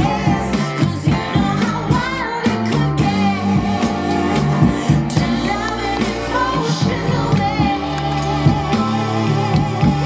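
A song with a singer and a bass line, played through a pair of TEAC bookshelf speakers driven by a small ZK-MT21 class-D amplifier module. It plays cleanly, with no audible distortion.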